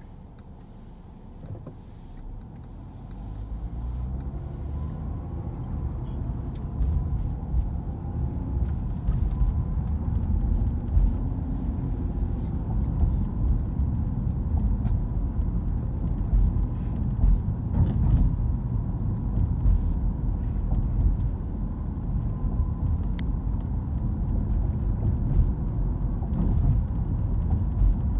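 Car interior road noise: a low engine and tyre rumble, quiet at first while the car is stopped at a light, then building over a few seconds as it pulls away and settling into a steady drive.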